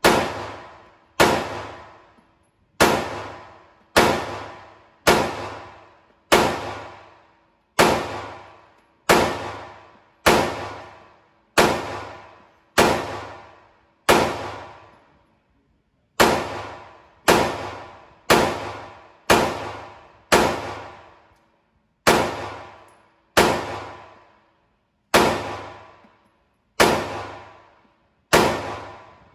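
A 9mm Glock pistol with an extended magazine is fired at a steady pace, about thirty shots at roughly one a second, with a pause of about two seconds near the middle. Each shot rings out in the indoor range.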